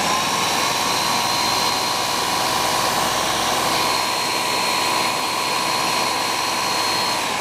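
Countertop blender running at a steady speed, puréeing cooked leeks and potatoes with butter and cream into soup. The motor begins to wind down near the end.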